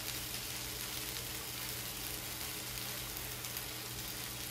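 Chicken breasts sizzling steadily in oil on a flat stovetop griddle, a fine even crackle over a faint steady low hum.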